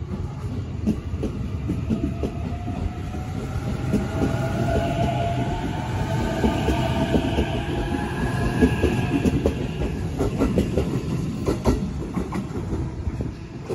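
E531 series electric train pulling away: its traction motors give a whine of several tones that rises in pitch over several seconds as it gathers speed. The wheels clack over rail joints throughout, most densely near the end.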